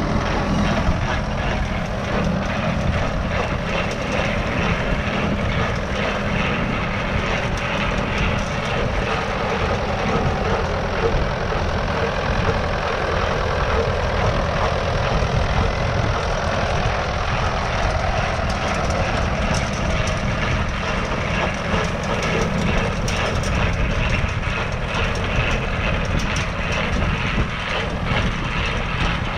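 Tractor engine running steadily under load.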